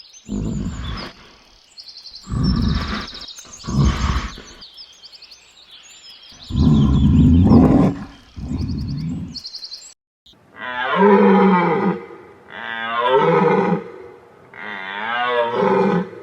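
A large animal roaring deeply five times, with birds chirping in the background. After a cut about ten seconds in, a different animal gives three long calls whose pitch wavers.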